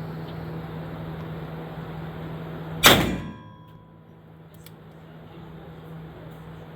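A single gunshot about three seconds in, a sharp crack that trails off in a short echo, over a steady low hum.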